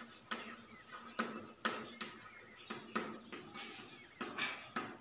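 Chalk writing on a blackboard: a quick, uneven run of short taps and scratches, two or three a second, as the words are written out.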